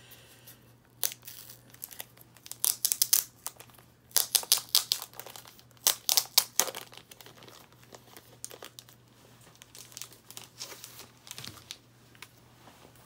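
Clear plastic comic-book sleeve crinkling and rustling as it is handled and opened, in loud spurts during the first seven seconds, then softer scattered crackles.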